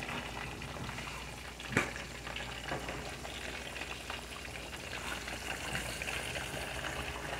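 Battered chicken thighs deep-frying in a pot of hot oil: a steady bubbling sizzle, with a single sharp click about two seconds in.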